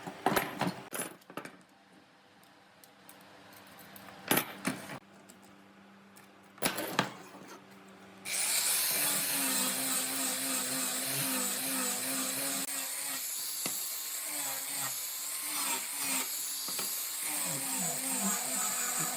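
A few sharp knocks, then about eight seconds in a handheld power tool starts and runs steadily, its pitch wavering slightly as it works the wood.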